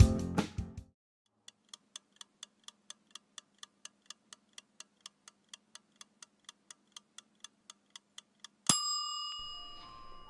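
Clock ticking, about four even ticks a second, then a single bell-like chime about nine seconds in that rings and fades.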